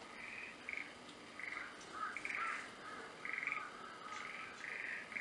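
Small animal calls repeating in about eight short, rasping bursts, unevenly spaced and high-pitched, over a faint steady high tone.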